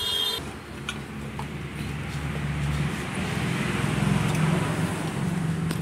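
Steady low drone of an engine or motor running, getting louder over the first few seconds and then holding.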